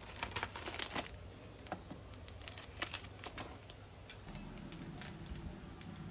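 Faint, irregular light clicks and taps, in quick clusters at first and then sparser, over a low background hum that changes about four seconds in.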